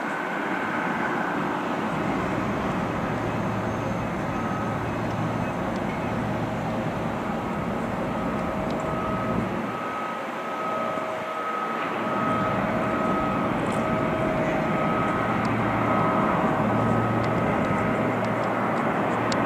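Saab 340B twin turboprop climbing out just after lift-off, its General Electric CT7 engines and propellers at takeoff power: steady engine and propeller noise with a low propeller hum and higher steady tones above it. It grows a little louder about two-thirds of the way through.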